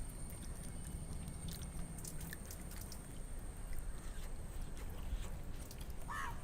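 Quiet outdoor background with a low steady rumble and faint scattered clicks, and a short animal call near the end.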